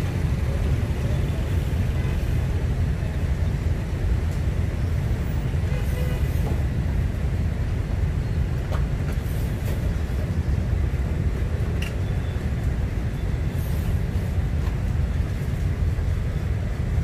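Steady low rumble of street background noise, with a few faint light ticks.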